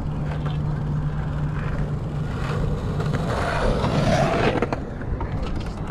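Wind rushing over the microphone and tyre noise from a bicycle rolling on a concrete path, with a steady low hum underneath. The noise swells louder between about three and four and a half seconds in.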